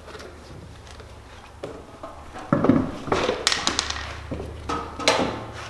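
Metal clanks and taps of tools and wheel hardware being handled during a wheel change, some ringing briefly, over a low steady hum. The clatter starts a couple of seconds in and comes in two clusters.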